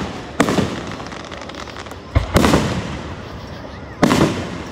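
Aerial firework shells bursting overhead: four loud bangs, one near the start, two in quick succession about halfway through and one near the end. Each trails off in a crackling, echoing decay.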